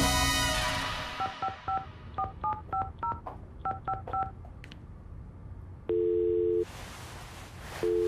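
Phone keypad tones: a number dialled as about ten short two-note beeps. A ringing tone then sounds twice, each ring under a second long. Salsa music fades out in the first second.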